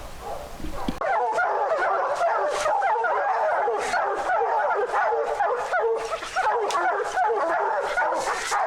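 A pack of bear hounds barking and bawling together, many overlapping voices at once, the baying of dogs holding a bear up a tree. It starts abruptly about a second in.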